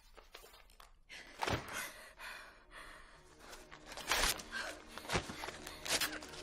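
Film soundtrack: a woman's gasping breaths over a busy run of rustling, knocks and thuds that starts about a second in. Music with steady low notes comes in during the second half.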